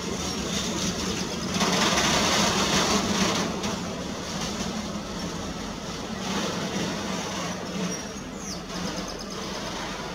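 Container freight train rolling past and away, its wagon wheels running over the rails, louder for a couple of seconds near the start.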